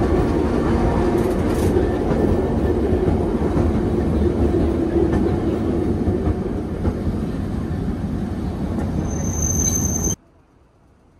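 Nagasaki streetcar running along its track, heard from inside the car: a steady rumble of wheels and motor. Near the end a thin high tone joins it, and then the sound cuts off suddenly.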